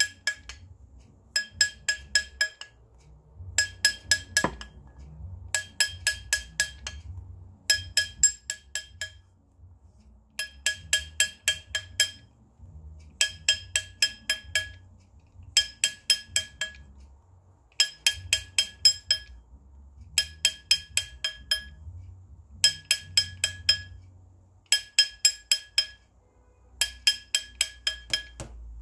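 Small hammer tapping a gold ring on a steel ring mandrel to stretch it a size larger. It goes in short runs of quick taps, about one run every second and a half, and each tap rings with a bright, high metallic clink.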